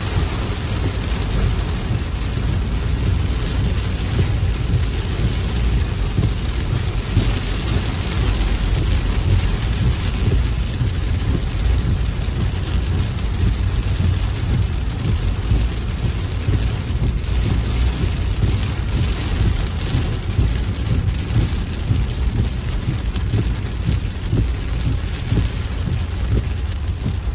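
Heavy rain falling hard on a car's roof and windscreen, heard from inside the car, with a steady low rumble underneath.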